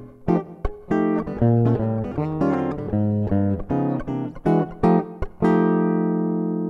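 Stratocaster-style electric guitar picked in a quick run of single notes and chords, played through the Marani M16 mixer's small-room reverb effect set to a 0.8-second decay. A final chord about five and a half seconds in rings on and slowly fades.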